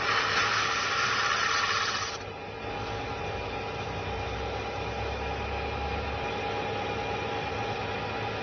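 Metal lathe running steadily with a low hum and whine while turning a liquid-nitrogen-frozen rubber part. For the first two seconds a loud hiss rides over it, then cuts off sharply.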